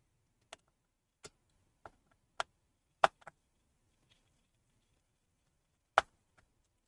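Small sharp clicks and taps of a T4 Torx screwdriver working tiny screws out of a MacBook Pro's internals, about eight irregular clicks, with two louder knocks about three and six seconds in.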